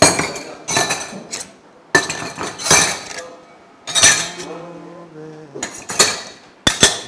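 Stainless steel drinking tumblers clinking and clattering against each other and the table as they are set down and arranged: a string of sharp metal knocks, each with a short ring.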